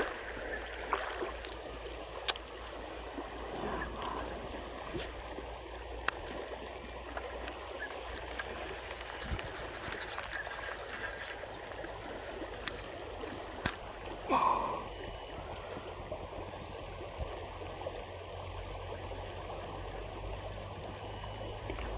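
Stream ambience: flowing water under a steady high-pitched insect drone, with a few faint clicks. A short animal call comes about fourteen seconds in.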